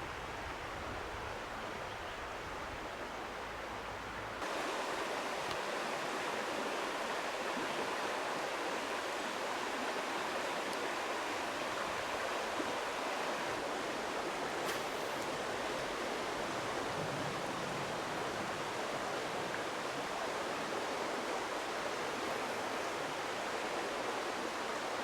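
Creek water running over shallow shoals, a steady rushing that gets louder and brighter about four seconds in.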